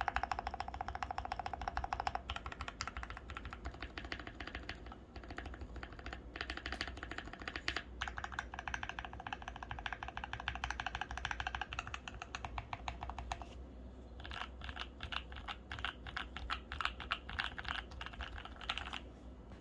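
Typing on a Tofu65 65% custom mechanical keyboard: a fast, continuous patter of keystrokes. In the last few seconds the keys come slower and more separately.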